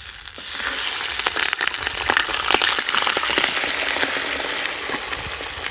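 Chicken pieces hitting hot mustard oil in a pan, frying with a loud sizzle and crackling spatter; the spattering comes from water on the chicken. The sizzle starts suddenly and eases a little toward the end.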